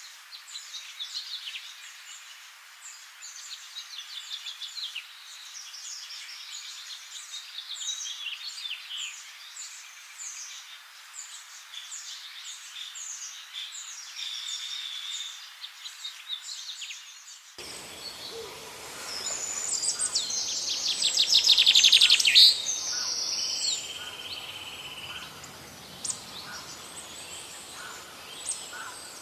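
Many wild songbirds chirping and singing in a forest, one quick call overlapping the next. About eighteen seconds in, the sound cuts to a different recording, where a loud, rapid trilling song builds to a peak and is followed by a steady, high whistled note.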